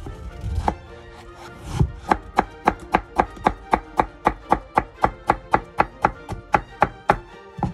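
Kitchen knife slicing pickled dongchimi radish into bite-size pieces on a cutting board: a steady run of crisp chops, about three or four a second, starting about two seconds in and going on until near the end.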